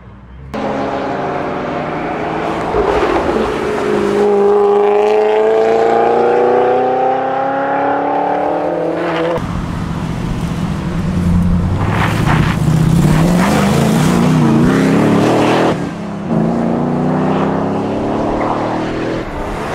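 An engine-swapped Nissan Silvia accelerates away, its engine note rising steadily through the rev range. About halfway through, the sound cuts to an LS3 V8-swapped Land Rover Defender accelerating past, its V8 rising and wavering in pitch.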